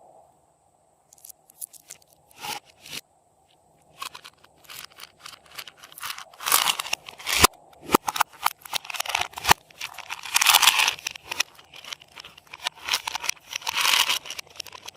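Hands squishing, folding and stretching slime: a few scattered clicks and pops at first, then from about six seconds in a dense run of sticky clicking and popping.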